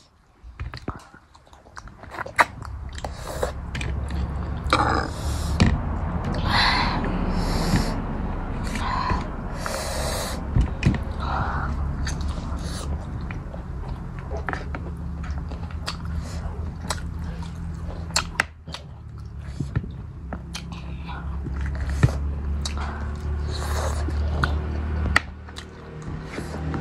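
Close-miked chewing and biting of cooked goat head meat, with many irregular wet smacks and clicks.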